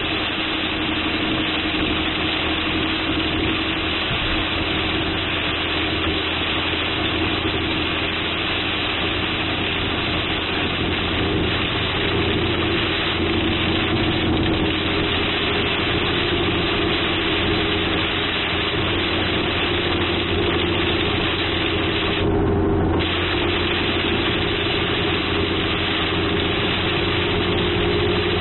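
Torrential rain falling on a car, heard from inside the cabin as a steady heavy hiss, over the low hum of the car's engine idling.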